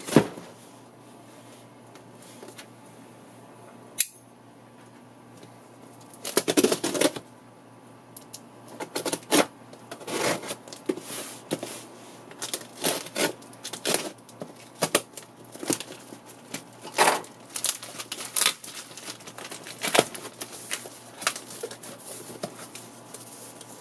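Plastic-wrapped, taped cardboard parcel being opened by hand: a sharp tap at the very start and another about four seconds in, then from about six seconds on a run of irregular tearing and crinkling as the wrap and tape come off and the flaps are pulled open.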